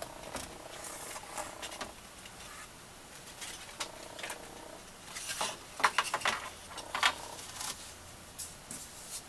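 Stiff black cardstock being handled, flexed and laid flat on a plastic scoring board: paper rustles and a run of sharp clicks and taps, busiest about halfway through, while the panel is set up to be rescored.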